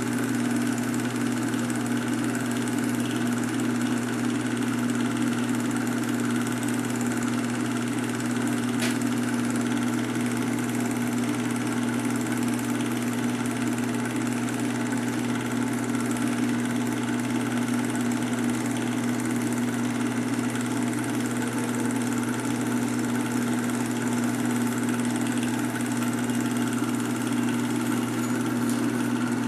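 Film projector running with a steady, unchanging mechanical hum and drone, as old silent home-movie footage is played back.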